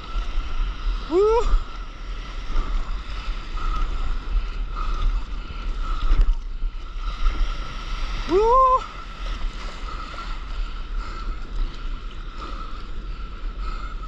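Surf and sloshing water around a stand-up paddleboard, with a steady low rumble of wind buffeting the microphone. Three short rising cries stand out: one at the start, one about a second in, and one near the middle.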